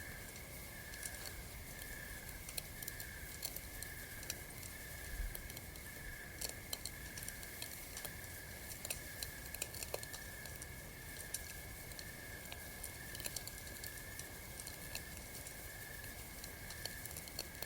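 Campfire crackling: irregular sharp pops and snaps of wood burning. Under it runs a steady, evenly pulsing high chirping, about two pulses a second.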